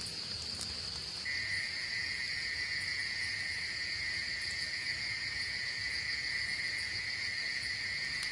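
Steady insect trilling: one high continuous trill throughout, joined about a second in by a second, lower-pitched trill.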